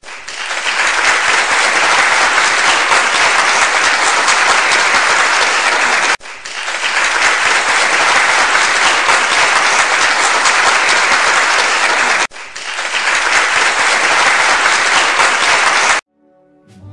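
Applause from a large audience, played as three back-to-back clips of about six seconds each. Each one swells up quickly and breaks off abruptly, and the last stops about a second before the end.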